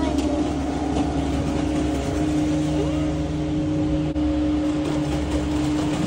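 Peterbilt concrete mixer truck's diesel engine running steadily at an even speed, a constant low hum.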